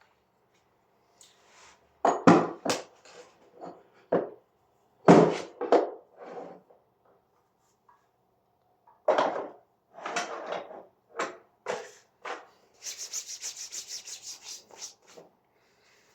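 Door closers being handled and set down on a wooden surface: scattered knocks and scraping rubs, then a quick rattling run of clicks for about two seconds near the end.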